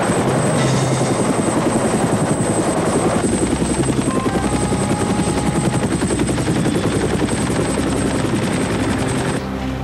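Helicopter in flight, its rotor blades chopping in a rapid, even beat; the sound cuts off just before the end.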